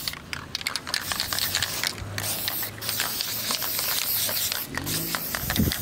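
Aerosol spray-paint can hissing in bursts, with several short breaks, as green paint goes onto a steel trailer frame.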